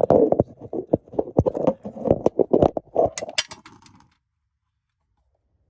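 Clicks and metal clinks from hand tools and car parts being handled, with a few sharp, bright clinks about three seconds in. The sound cuts off suddenly about four seconds in.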